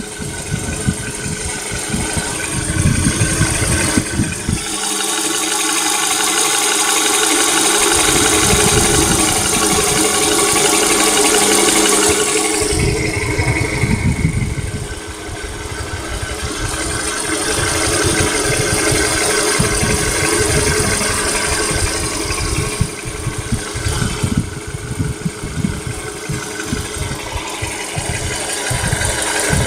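VW Polo Sedan's 1.6-litre four-cylinder petrol engine running hot with a knock. It idles and is revved up twice, each time held for several seconds before dropping back.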